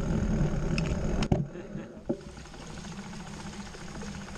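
Wind buffeting and tyre rumble on the camera microphone as a mountain bike rides down a grassy slope, cut off suddenly after about a second. Then a quieter stretch with a click and a faint light ticking, the rear hub freewheeling as the bike is pushed along.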